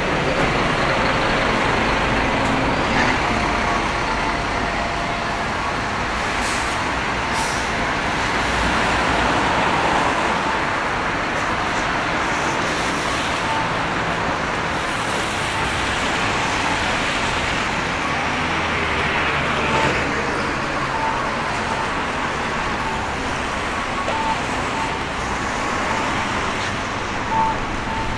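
Steady city street traffic on a wet road: cars, buses and trucks running and passing, their tyres making a constant hiss over a low engine rumble.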